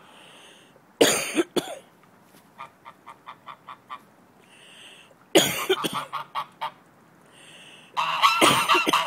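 A domestic goose honking loudly in reply to a person's fake coughs, in three bouts, with a run of quick soft clicking notes between the first two.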